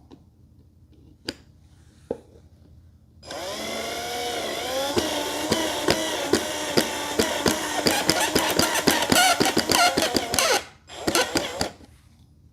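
Power drill driving a screw: a motor whine rising in pitch as it spins up, then running with rapid clicking for several seconds, stopping, and a second short burst near the end. Two single knocks come before it.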